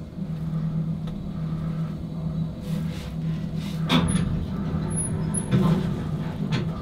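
A steady low mechanical hum, with a soft knock about four seconds in.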